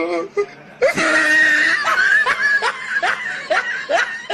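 A person laughing hard: a loud burst of laughter about a second in, then a run of short, rising, squealing laughs about three a second.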